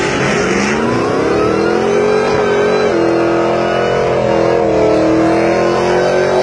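Car engine revving up and held at high revs for a burnout. The pitch climbs over the first two seconds, then stays high with a small drop about three seconds in.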